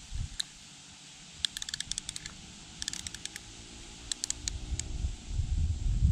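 Bursts of small, sharp, high clicks coming in quick irregular runs, a few clicks at a time, then a low rumble swelling near the end.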